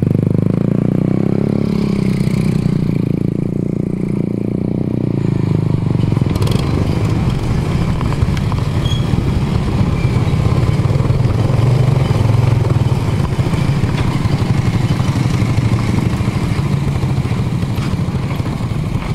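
Motorcycle engine running steadily at low speed, close by.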